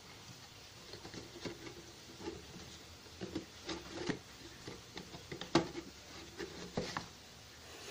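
Cardboard product box being handled and opened by hand: scattered scrapes, rubs and taps of the cardboard, with one sharp knock, the loudest, about two-thirds through.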